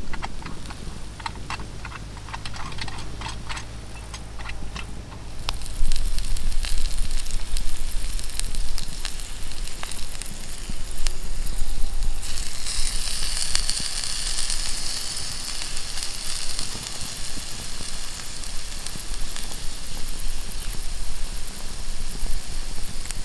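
Pieces of meat sizzling on a hot flat stone slab over campfire embers, with crackling from the fire. The sizzle grows clearly louder about halfway through as more pieces are laid on the stone. Before it, for the first few seconds, only wind and a few light clicks.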